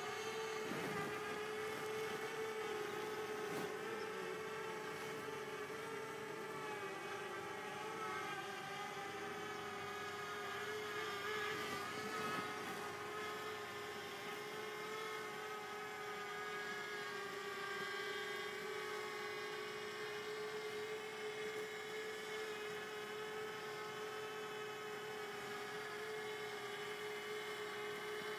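Simtoo Fairy quadcopter drone's motors and propellers whining in flight at one steady pitch, wavering slightly for a few seconds in the middle.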